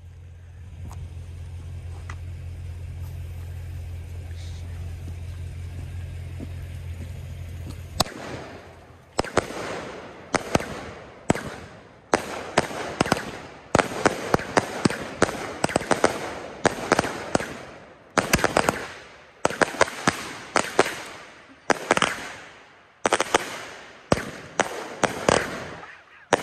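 Fireworks going off in quick volleys of sharp cracks, about a cluster a second, each one echoing away. They start about eight seconds in, after a steady low hum.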